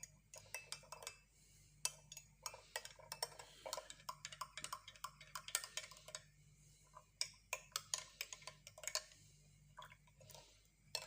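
Light, irregular clicks and taps of a small spoon against a container as ground cinnamon is spooned into a glass of citrus juice, several a second for most of the time.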